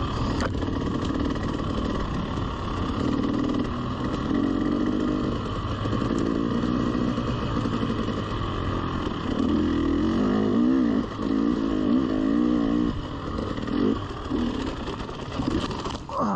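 Two-stroke 300 cc enduro dirt bike engine running at trail speed, its note rising and wavering as the throttle is worked, with a busier run of revving in the middle. Near the end the engine note breaks up, and a short sharp knock comes as the bike goes down.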